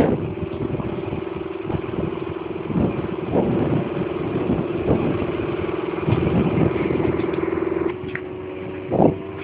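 Engine of a vehicle being ridden along a dirt road, running with a steady drone, with the metal body rattling and knocking. The engine note drops a little near the end, and a loud knock comes just after.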